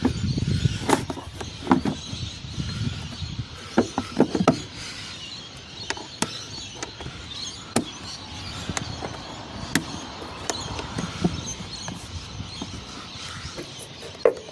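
Scattered clicks and knocks of plastic parts being handled as the airbox lid and its clips are worked back into place in the engine bay.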